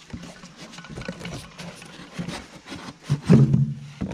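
Cardboard box flaps rustling, crackling and scraping as a new thermostat housing is lifted out of its packaging, with scattered clicks from the part and the gloves. A short, louder low hum comes about three seconds in.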